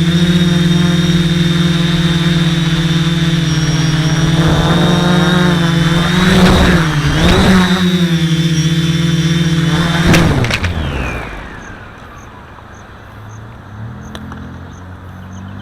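RC Timer Spider quadcopter's Sunnysky 980kv brushless motors and propellers whining steadily, dipping briefly in pitch twice in the middle as the throttle changes. About ten seconds in a sharp knock comes and the motors wind down in a falling whine, leaving it much quieter.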